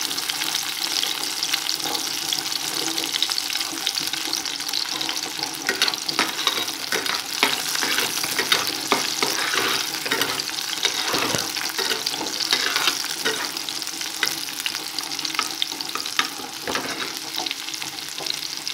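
Chopped ginger and green garlic sizzling steadily in hot oil in a kadhai. From about six seconds in, a steel spoon stirs them, scraping and clicking against the pan.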